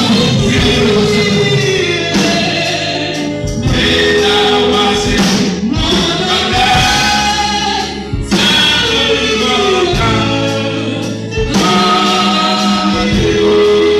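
Gospel music with a choir singing, continuous and loud throughout.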